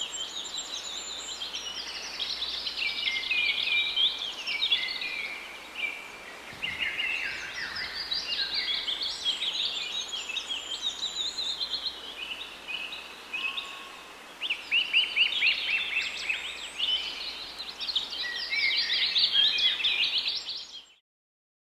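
Many birds chirping and singing at once, a dense chorus of quick overlapping calls. It cuts off suddenly near the end.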